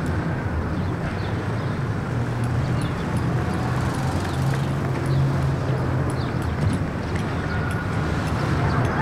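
Steady outdoor background noise with a low hum running under it and faint scattered clicks.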